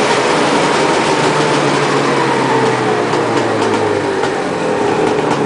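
Arctic Cat Wildcat 700 EFI two-stroke snowmobile engine running steadily near idle, its pitch easing down slightly about halfway through.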